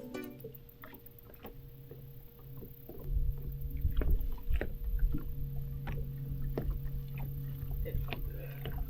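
A boat motor hums steadily. A low rumble comes in about three seconds in, with scattered light knocks and taps throughout.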